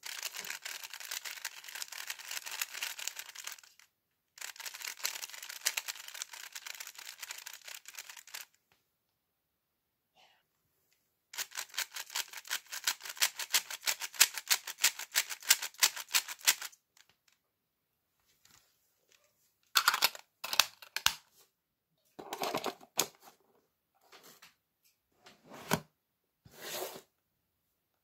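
GAN 3x3 speedcube being turned fast by hand: rapid runs of plastic clicking from the layers snapping round, in three long spells with short breaks between, then a few separate clacks and knocks near the end.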